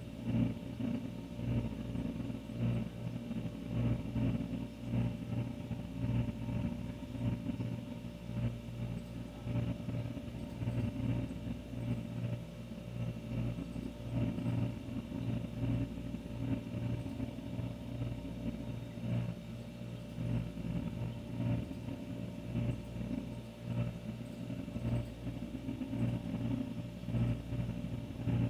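Old refrigerator running: a steady low hum with a faint higher tone above it, wavering slightly in loudness.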